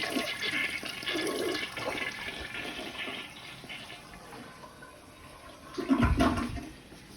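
Toilet flushing, its rush of water fading away over the first few seconds. A dull thump comes about six seconds in.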